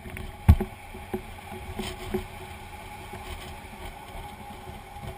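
Fire engine driving slowly, heard from a camera mounted on its outside: a steady engine hum with several knocks and rattles, the loudest about half a second in.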